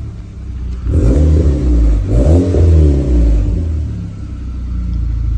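Audi A5 exhaust, with stainless steel mufflers and the catalytic converter replaced by a flame arrestor, as the engine is revved in two quick blips, its pitch rising and falling each time, then settles back to a steady idle.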